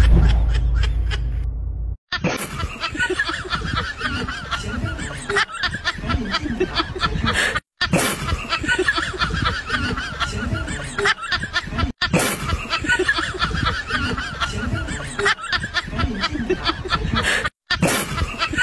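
A short logo sting with a deep rumble that fades out. After a cut about two seconds in comes honking, goose-like laughter in short repeated fits, broken off for a moment three times.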